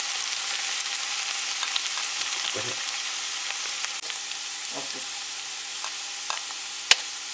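Oil sizzling steadily in a frying pan under a pancake of grated potatoes, with a single sharp tap near the end.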